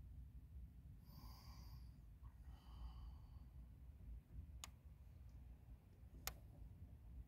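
Near silence with a steady low rumble, a faint breath about a second in, and two small sharp clicks near the end.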